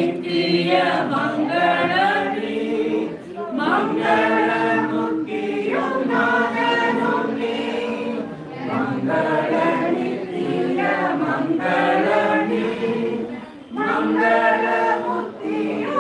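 A group of voices singing together without instruments, in sung phrases with brief breaks between them.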